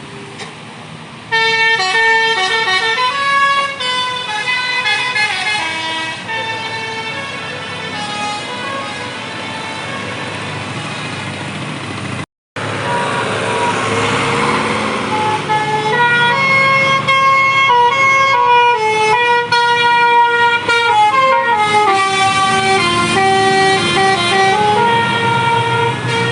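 Bus 'basuri' telolet horn, a set of multi-trumpet air horns, playing quick melodic tunes in stepped notes, starting about a second in. The sound drops out briefly near the middle, then a rush of noise and another horn melody follow.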